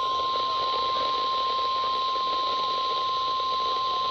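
NOAA Weather Radio's 1050 Hz warning alarm tone, one steady unbroken tone over radio hiss, sounding as a test of the weather radio alert system.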